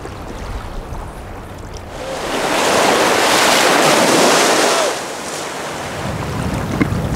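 Shallow surf washing in, one wash swelling into a loud hiss for about three seconds in the middle, with wind rumbling on the microphone.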